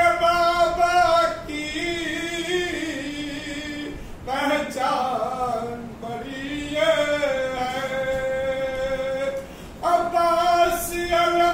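A man chanting a noha, a Shia mourning lament, solo and unaccompanied, drawing out long held notes that step up and down in pitch. The voice breaks off briefly about four seconds in and again near the end.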